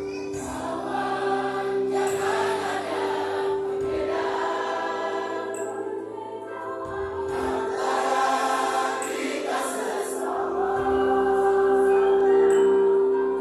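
A large mixed choir singing, with steady held accompaniment chords underneath; it swells a little louder near the end.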